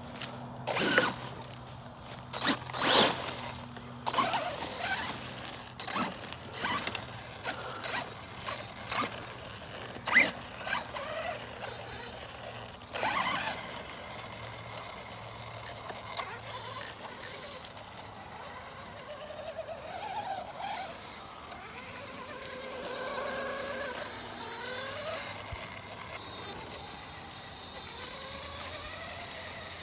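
Arrma Big Rock BLX RC truck driving a trail. In the first half there are irregular sharp knocks and crackles as it goes over the ground. In the second half its brushless motor whines, rising and falling with the throttle.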